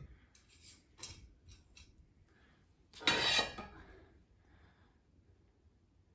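Coffee-table parts being handled during assembly: a few light clinks, then a brief louder clatter about three seconds in.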